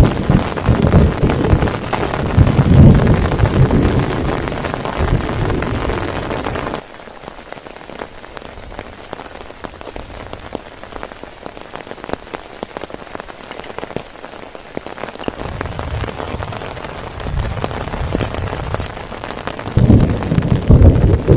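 Heavy rain falling steadily, with deep rumbling of thunder that is loud for the first seven seconds, drops away suddenly, and builds again near the end.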